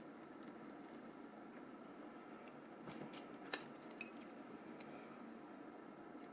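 A few faint, sharp clicks and light scraping of small tools and plastic and metal phone parts being handled, the sharpest click about three and a half seconds in, over faint room noise.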